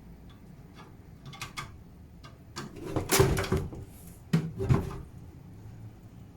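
Metal PC case and screws being handled: a few light clicks, then two louder clattering knocks about three seconds in and again a second and a half later.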